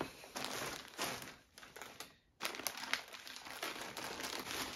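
Plastic packaging crinkling as it is handled and opened by hand, with a short lull about two seconds in before the crinkling resumes.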